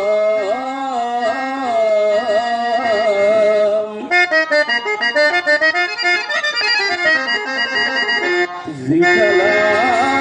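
Devotional bhajan music: a voice singing over a steady harmonium. About four seconds in, the singing gives way to a harmonium passage over quick, even percussion beats, and the singing comes back near the end.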